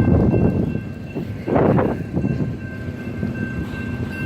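Train rumbling on the rails, with two faint steady high whines over it and a louder surge about a second and a half in.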